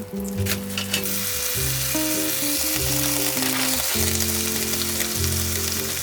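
Food sizzling and crackling as it cooks, with a few sharp pops in the first second, under background music with held low notes.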